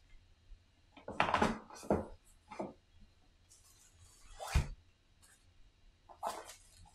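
Cardboard game box and map tiles being handled: a series of short scrapes and knocks, the loudest a dull thump about four and a half seconds in.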